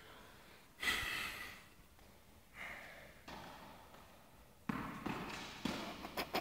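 Tennis ball being hit and bouncing on an indoor court, each knock echoing in the hall: one sharp hit about a second in, a fainter one a couple of seconds later, then a run of quick knocks from about two-thirds of the way through.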